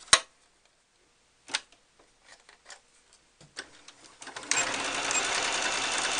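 A computerized sewing machine (a 5200 QDC) starts stitching a straight seam about four and a half seconds in and then runs steadily with a fast, even rhythm. Before it starts there is one sharp click near the beginning, the loudest sound, and a few fainter clicks while the fabric is set under the needle.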